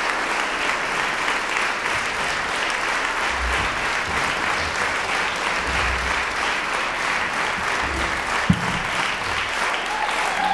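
Concert hall audience applauding steadily, a dense even clapping, with one sharp thump about eight seconds in.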